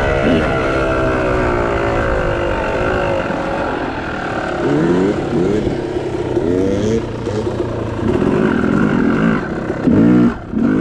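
Yamaha YZ250 two-stroke dirt bike engine with an aftermarket expansion chamber and shorty silencer, running under load and then revving up in several rising sweeps as the throttle is opened and closed. The revs are loudest near the end.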